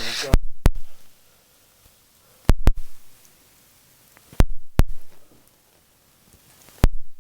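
About seven sharp clicks or knocks, mostly in close pairs a second or two apart, with little else between them.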